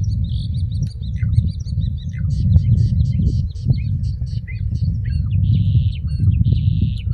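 Starling singing: a fast, varied jumble of clicks, short whistles and glides, with two harsh buzzy notes near the end, over a steady low rumble.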